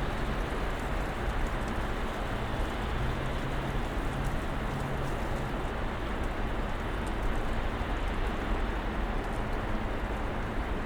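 Snowstorm ambience: a steady, even hiss with a low hum underneath and scattered faint ticks, like snow or sleet pattering.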